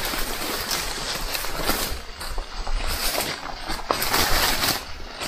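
Hikers' footsteps on a downhill trail, with irregular crunches and rustling as they brush through vegetation.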